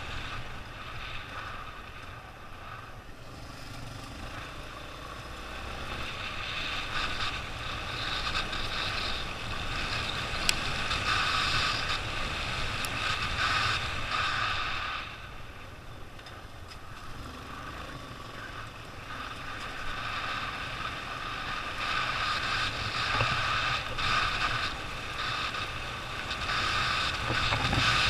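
Motorcycle running along a road, its engine rumble mixed with wind and road noise that swells and fades as it rides.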